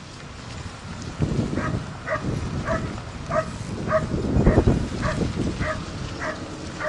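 Dog barking in short, high yips, about two a second, starting a second and a half in, over a low rushing noise that is loudest a little past the middle.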